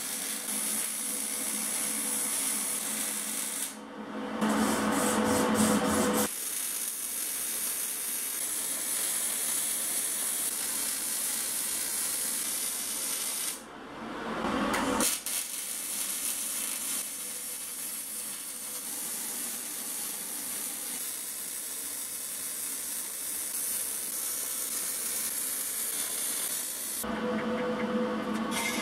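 MIG welder arc burning on steel sheet metal, a steady hiss in long runs broken by abrupt cuts between clips. Near the end a different, lower sound takes over.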